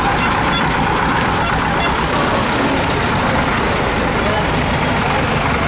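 Tractor engines running steadily, with people's voices mixed in.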